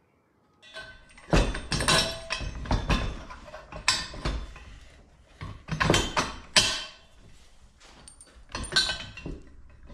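Steel suspension link bars and fittings being handled on a steel workbench: a string of sharp metal clanks and knocks with brief ringing, the loudest a little past a second in and again around six and a half seconds in.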